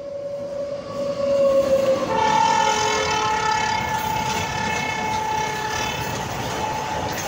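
WAG-9 electric locomotive's horn sounding one long held blast as it passes with a freight train: first a lower note, then a louder, higher note from about two seconds in, held almost to the end. Under the horn, the wagons rumble and clatter over the rails.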